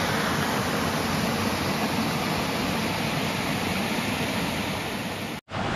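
Steady rush of river water tumbling over rock ledges in small rapids. It cuts off abruptly near the end.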